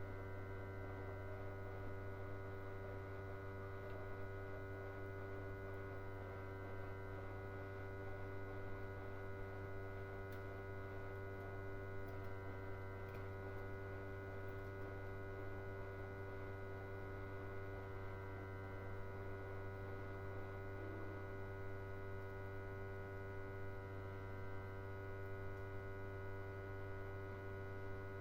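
Steady electrical mains hum: a low buzz with a stack of fainter, unchanging tones above it.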